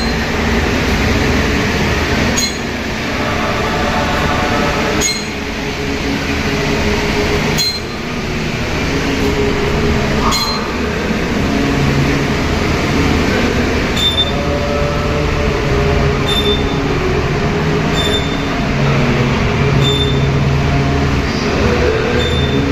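Eerie droning soundscape of slowly shifting, sustained tones, with a sharp metallic clink every two to two and a half seconds.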